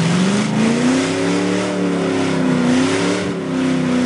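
Old Chevrolet pickup's engine revving hard, its pitch rising and wavering, dipping about three seconds in, then held steady and high near the end. The truck is bogged down nose-first in the mud pit, so the engine is spinning the wheels without moving it forward.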